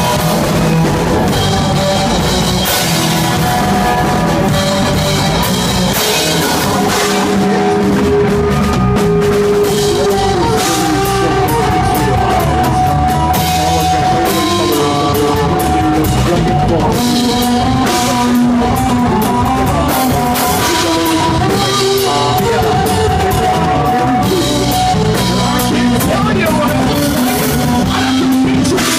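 Rock band playing loudly and steadily, with drum kit and electric guitar.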